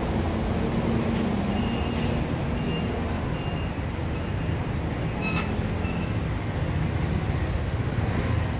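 Steady low hum and rumble of a food stall's fans and cooking equipment, with a few light metal clicks as the egg-cake mold grill is handled.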